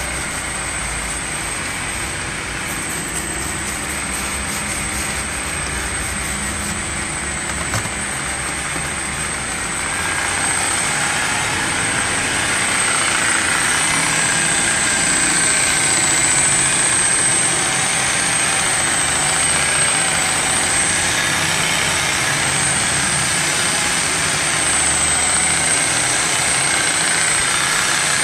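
Electric rotary car polisher running steadily with a high motor whine as it buffs a painted door panel. It grows louder about ten seconds in and then holds steady.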